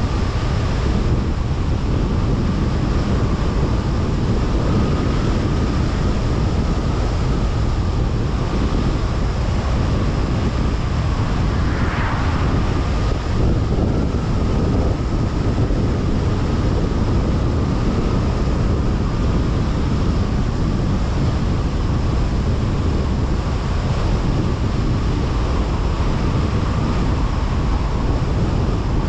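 Road and wind noise of a car driving along a highway: a steady, deep rumble with a faint constant tone above it.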